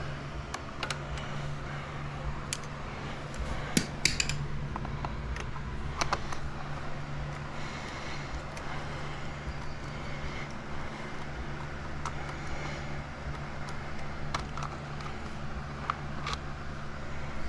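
Scattered metallic clicks and clinks of hand tools on motorcycle bolts and parts, several sharper knocks among them, over a steady low hum.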